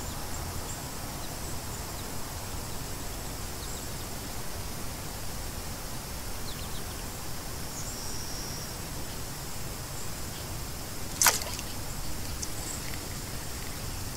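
Steady outdoor ambient noise by a river, an even hiss with more weight in the low end, and one short sharp click about eleven seconds in.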